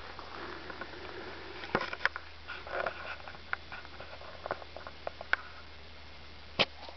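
Small clicks and rustles of a compound bow being drawn and held at full draw with a home-made grass-tree arrow, then a single sharp snap about six and a half seconds in as the bow is shot.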